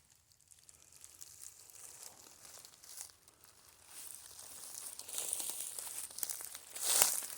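Rustling and crunching of dry leaves and brush underfoot, faint at first, building after about four seconds, with a louder swell near the end.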